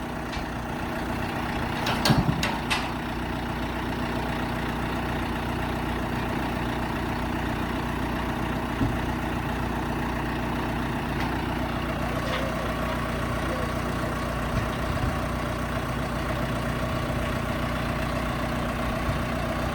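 Heavy equipment engine idling steadily, with a few sharp knocks about two seconds in.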